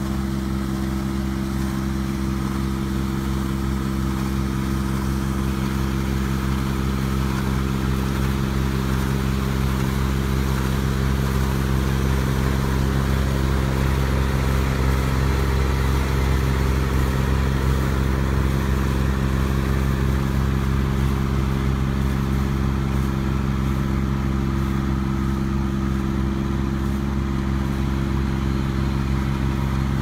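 Small tracked rice combine harvester running steadily while cutting and threshing rice: its engine and the cutting and threshing gear make a constant drone with a whirring mechanical hiss above it.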